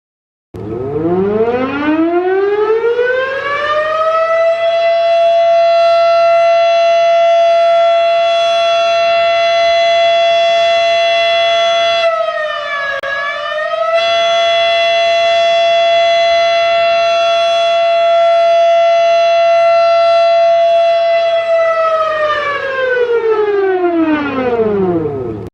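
Federal Sign & Signal Model 7 electromechanical tornado siren winding up to a steady, loud, high tone, holding it with a brief dip in pitch about halfway through, then winding down and stopping near the end.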